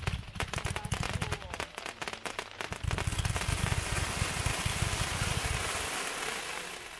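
Hot Fireworks' Frontline firework cake firing: rapid popping shots and crackle over the first few seconds, then a dense, even crackling that fades near the end.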